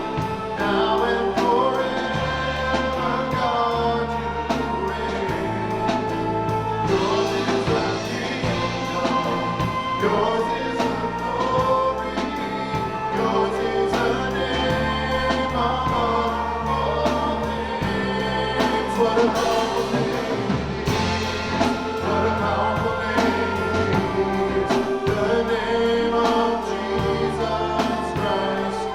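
Gospel-style worship music: a group of voices singing over a band with a held bass line and a steady beat.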